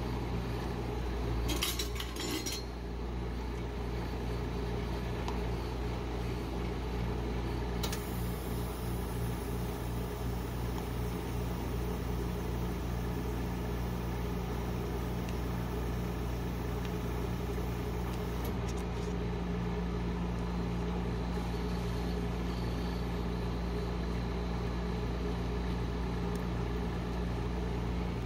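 Steady hum of a rolled-ice-cream cold plate's refrigeration compressor. A few short metallic clinks and scrapes come about two seconds in, from a steel spatula working on the frozen steel plate.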